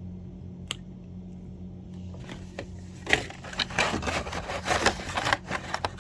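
Hair-dryer attachments and their packaging being handled: a single click a little under a second in, then about four seconds of rustling and scraping.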